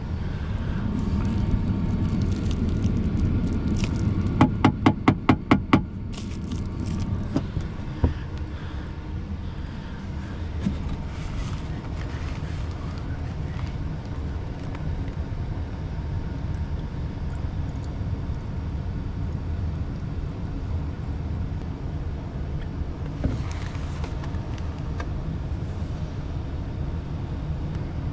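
Wet/dry vacuum running steadily while it sucks water and debris out of a clogged condensate drain line. Partway in there is a quick run of about seven sharp clicks, followed by a few single knocks.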